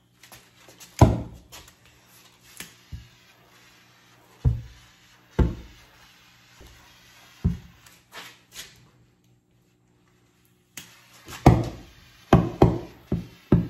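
Acetylene-filled soap bubbles exploding: about a dozen sharp bangs, irregularly spaced, each dying away quickly, with several in quick succession near the end.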